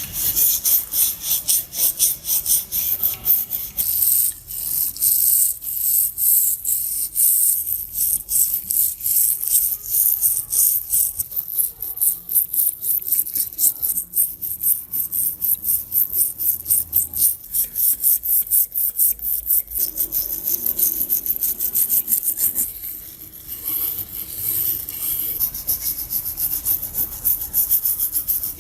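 Rapid, even back-and-forth scrubbing strokes on a rusty meat grinder's metal part, a few strokes a second, as the rust is cleaned off; the strokes ease briefly about three quarters through.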